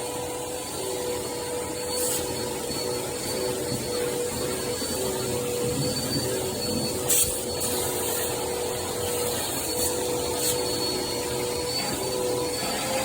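Vacuum cleaner running steadily with a constant whine as it is used to suck loose shed fur off a Siberian husky's coat. A few brief clicks are heard.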